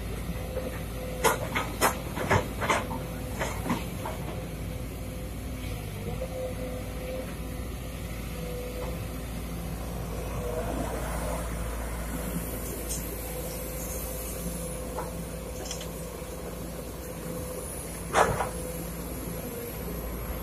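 Sumitomo SH210 hydraulic excavator's diesel engine running steadily as the machine digs and swings a bucket of earth. A quick cluster of sharp metal knocks comes in the first few seconds as the bucket works in the soil, and one loud knock comes near the end.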